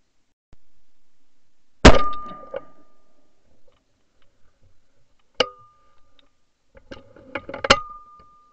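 Shotgun shots picked up by a barrel-mounted ShotKam camera: a very loud shot about two seconds in, another about five and a half seconds in, and a third near the end after a few smaller clicks. Each shot leaves a brief ringing note.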